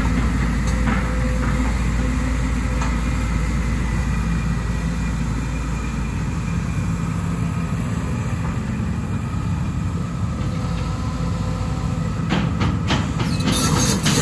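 Link-Belt 250 X4 long-front excavator's diesel engine running steadily under hydraulic load as the upper structure swings and the long boom and bucket move. A run of metallic clanks comes in near the end.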